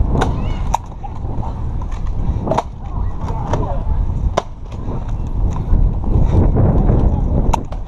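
Heavy rumbling, jostling noise of a moving camera during a Nerf foam-blaster game, broken by about five sharp clicks scattered through it.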